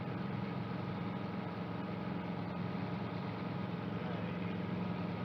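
Guimbal Cabri G2 helicopter's Lycoming O-360 piston engine and rotors running, a steady even drone on final approach to the hover.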